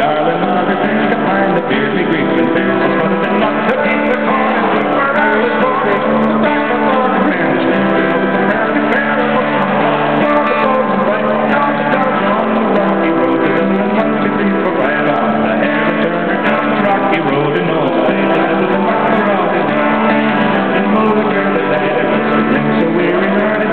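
Acoustic guitar strummed in a live solo performance, played through a small amplifier.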